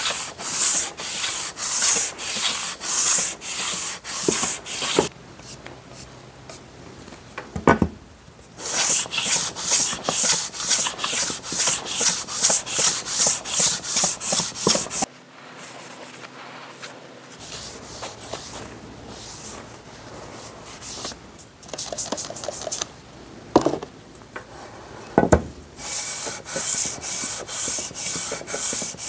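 Cast-iron sole of a Stanley Bailey No. 5 hand plane body scraped back and forth over sandpaper while the sole is being flattened: rasping strokes at about two a second, in three runs with quieter pauses between. There are a few soft knocks in the pauses.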